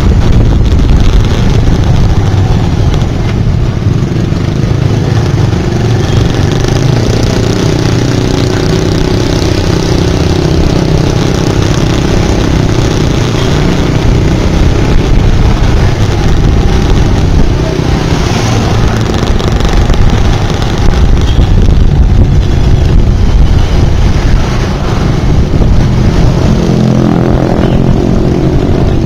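Motorbike engine running while riding in heavy traffic, mixed with the engines of the cars, jeepneys and motorbikes around it, over a steady low rumble.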